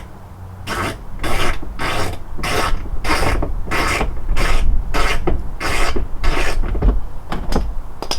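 A steady run of about a dozen rasping, rubbing strokes, roughly one every half second, as car body trim is worked by hand back into place around the fender.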